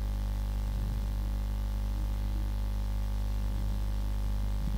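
Steady electrical mains hum, a low drone with faint static hiss.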